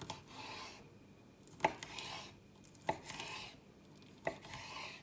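Knife cutting food on a cutting board: four strokes, each a sharp tap followed by a short scraping slice, about every second and a half.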